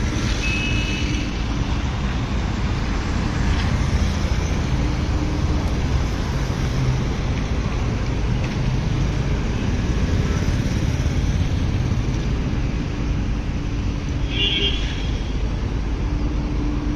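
Steady rumble of road traffic and diesel machinery, with short vehicle horn toots about half a second in and again near the end.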